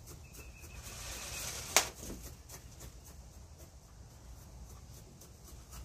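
Hands scraping and rustling in loose bonsai soil while aerating it, then a single sharp click a little under two seconds in; afterwards only faint small ticks.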